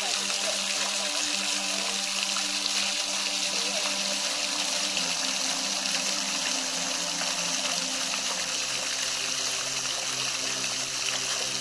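Running water trickling and splashing in a steady, unbroken rush, with a low steady hum underneath.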